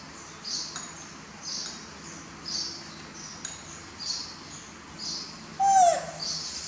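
Short high chirps repeating about once a second from a small animal, insect or bird. Just over five seconds in comes a single loud, short squeaky call that falls in pitch.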